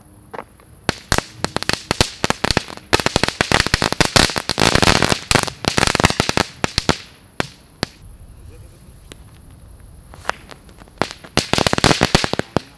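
Ground firework going off, throwing sparks with a fast run of sharp crackling pops: it starts about a second in, grows dense for several seconds, thins out, then a second flurry of pops comes near the end.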